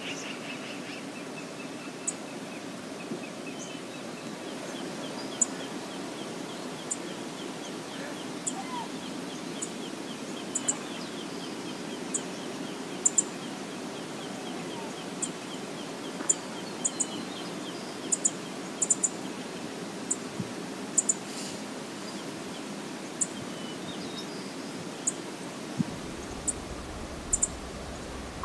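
River water flowing steadily, a constant rush, with many short, high-pitched ticks scattered through it.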